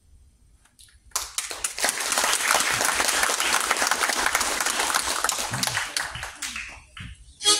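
Audience applauding, starting about a second in and dying away around six seconds in. A short harmonica note sounds right at the end.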